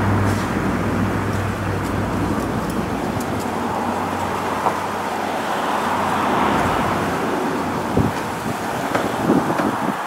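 Steady outdoor rush of road traffic noise, with a low engine hum that fades out in the first few seconds and a few light clicks near the end.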